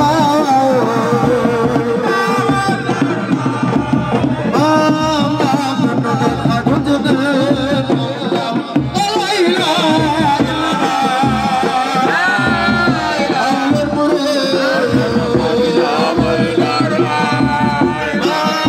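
Zikr (religious chant) sung with a wavering, ornamented melody over drums, loud and continuous.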